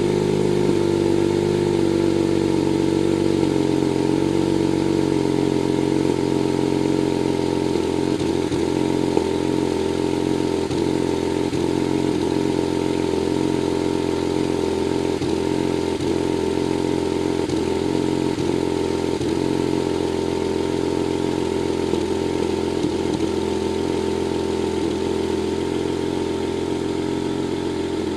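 BMW 135i turbocharged inline-six running steadily at idle, with a brief stumble about once a second from around eight seconds in: a misfire that does not set a trouble code.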